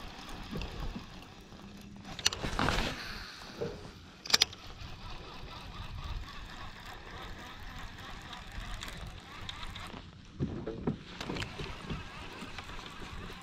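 Water lapping around a fishing kayak, with a few sharp clicks and knocks as hands handle a baitcasting reel; the sharpest click comes about four seconds in.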